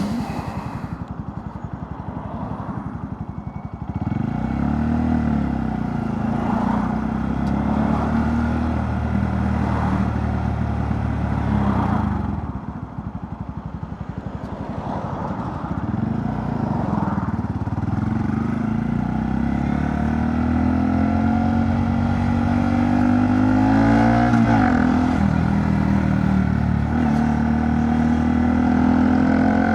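Honda Monkey 125's single-cylinder four-stroke engine through a Scorpion titanium exhaust with the baffle in, heard while riding. It runs lower for the first few seconds, then pulls away about four seconds in, with the revs stepping up and dropping through gear changes and a quick blip of revs past the twenty-second mark.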